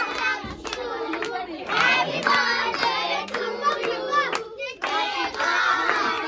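Children singing together and clapping their hands along.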